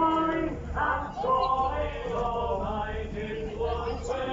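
Several men's voices singing or chanting together in long held notes, over a steady low hum.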